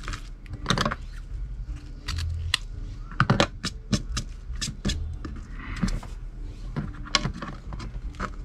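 Craft ribbon being handled and arranged by hand: irregular crinkling rustles and many sharp light clicks, over a low steady hum.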